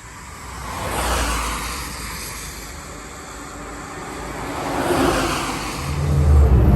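Road vehicles passing by twice, a rising and fading rush of noise each time, then a loud low engine rumble coming in near the end.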